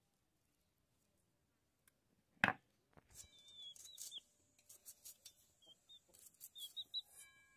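Small shallots being sliced against an upright curved blade fixed to a wooden base (aruvamanai), giving light crisp snips, while birds chirp in short calls. After a near-silent start there is one sharp knock about two and a half seconds in.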